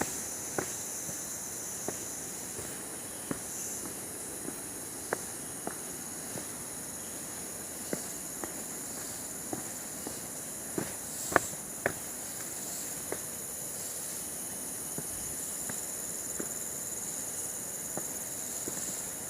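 Footsteps on a forest path, irregular crunches and taps, the loudest a pair about two thirds of the way through, over a steady high-pitched insect chorus.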